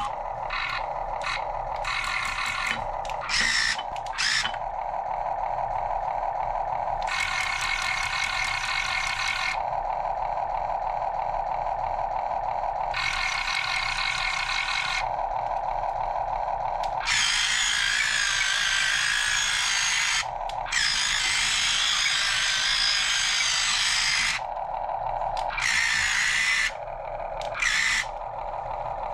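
Small electric drive motors and gearboxes of a 1:16 scale radio-control Cat 272D skid steer whirring in repeated start-stop bursts of a few seconds each, one longer, louder run in the second half.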